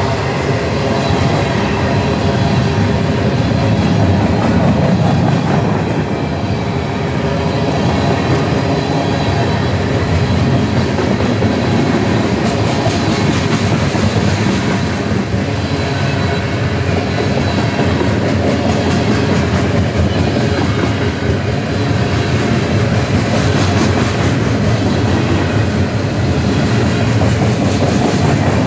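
Mixed freight train of tank cars, boxcars and covered hoppers rolling past close by: a steady loud rumble of steel wheels on rail with rapid clicking as the wheels pass over rail joints.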